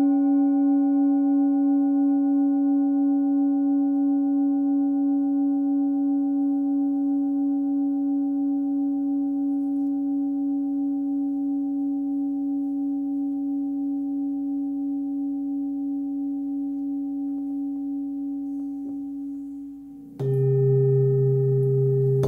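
Hand-forged singing bowl tuned to about 282 Hz (C#) ringing: one steady low tone with several higher overtones and a slow, regular wavering, gradually fading. About two seconds before the end it dies away, and a louder ringing with a deeper, different set of tones starts abruptly.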